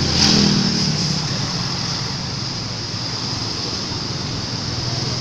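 Roadside traffic noise: a vehicle passes close about half a second in, its engine briefly loudest then falling away, over a steady engine hum and a high steady hiss.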